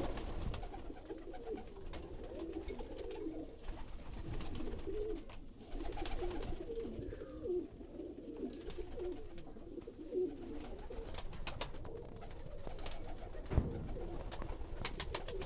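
Many domestic pigeons cooing together, with scattered clicks and knocks such as wing flaps or feet on the loft floor.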